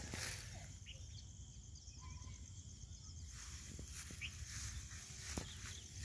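Faint rural outdoor ambience: a steady high insect trill, a few short, faint bird chirps, and a low rumble underneath.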